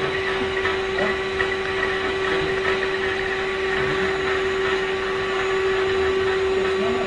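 Vacuum cleaner running steadily: a constant motor hum over an even rush of air.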